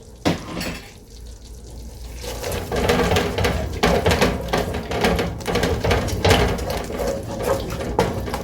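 A spoon stirring and scraping a thick ketchup-based sauce in a pan, starting about two seconds in as irregular repeated strokes.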